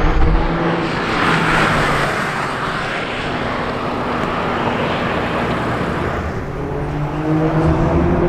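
Sports car engine and exhaust: a steady engine note with a rush of noise about a second in, then the engine note climbs steadily as the car accelerates over the last couple of seconds.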